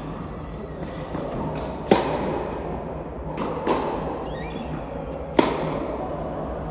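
Tennis rally on an indoor court: two loud, sharp racket-on-ball hits about three and a half seconds apart, with softer hits and bounces between them, each ringing in the hall. A steady low hum runs underneath, with brief faint squeaks midway.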